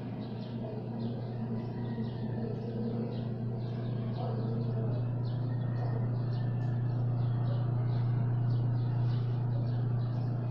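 A steady low hum, with small birds chirping over it several times a second.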